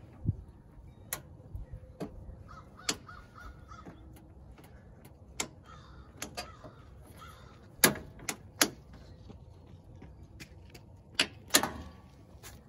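Plastic trim cover beside a Toyota Tundra's headlight being pulled off by hand: a string of sharp clicks and snaps as its plastic clips release. The loudest snaps come about eight seconds in and again near the end.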